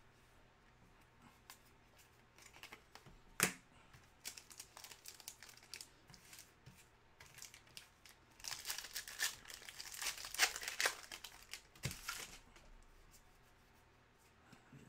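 Foil wrapper of a trading-card pack crinkling and tearing open by hand: scattered crinkles with one sharp crackle about three seconds in, then a dense run of crinkling and tearing lasting about four seconds.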